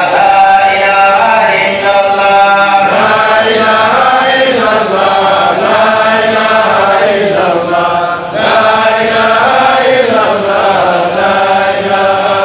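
A man's voice chanting a devotional song through a microphone in long melodic phrases, the notes held and gliding up and down.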